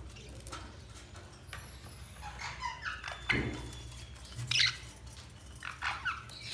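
Budgerigars chirping and chattering in short, scattered calls, with louder calls about three and a half and four and a half seconds in.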